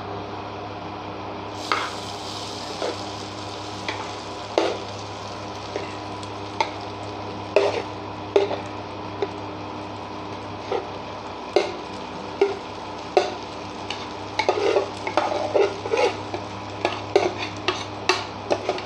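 A metal spoon scraping and tapping against the container and the pan rim as soaked poha is spooned into the pan: scattered clicks and knocks, coming thicker near the end. Under it is the steady hum of an induction cooktop.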